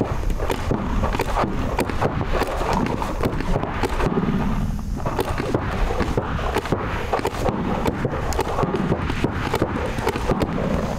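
Paintball markers firing, many quick pops, over a steady wind rumble on the microphone.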